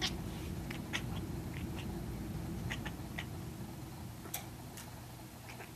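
Siamese cat chattering at a red laser-pointer dot: a string of short, irregular clicks and chirps. It is the excited prey-stalking chatter some cats make when chasing a laser pointer.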